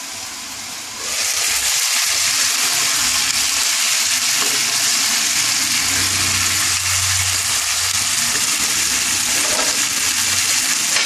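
Chicken and vegetables sizzling in oil in a frying pan, muffled under a glass lid at first; about a second in, the lid comes off and the sizzle gets suddenly louder and stays steady while the food is stirred with a wooden spatula.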